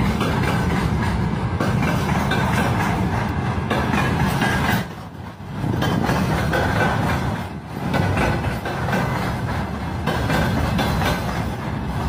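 Freight train of loaded flatcars rolling past, the steel wheels rumbling and rattling on the rails. The sound drops away briefly twice, about five and about seven and a half seconds in.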